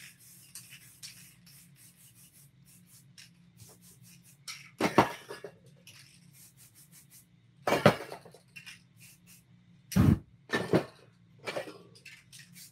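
Hands rubbing and dabbing spray paint on a canvas: faint scratchy rubbing, broken by several short, loud noises about five, eight, ten and eleven seconds in.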